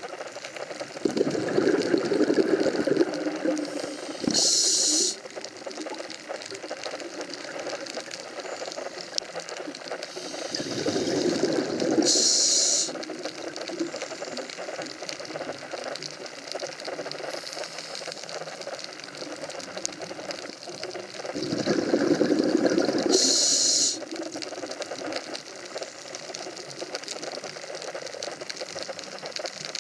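A scuba diver breathing through a regulator underwater: three breaths about ten seconds apart. Each is a few seconds of rushing, bubbling noise that ends in a short, sharp hiss, over a steady underwater hiss.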